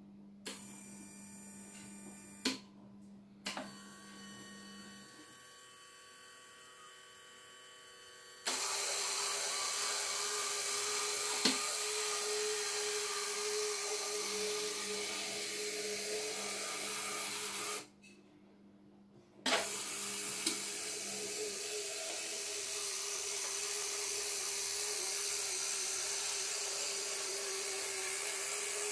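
Small electric motors and gearing of an automatic model excavator and field-railway train. A faint hum with a few clicks gives way about a third of the way in to a loud, steady, high motor whine. The whine stops for about two seconds, then runs again.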